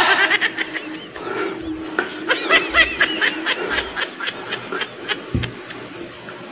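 A man giggling in a quick run of short laughs, about six a second, that fade out. A soft knock follows near the end, as a plastic cup is set down on the wooden table.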